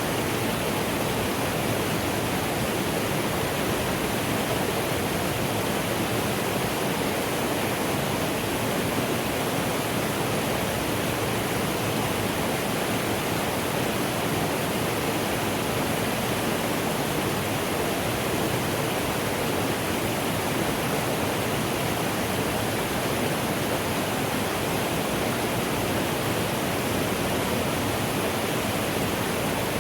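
Mountain stream flowing steadily, a constant rush of water that does not change.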